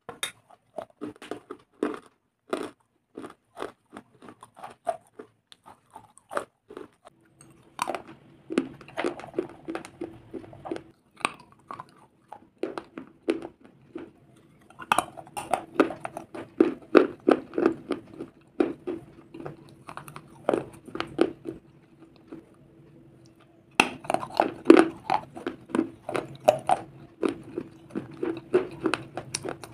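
Close-miked crunching and chewing of crumbly dry clay and soft stone pieces, such as shale, clay pot and slate, in a run of sharp crunches with short pauses. A faint steady hum sits under the middle stretch.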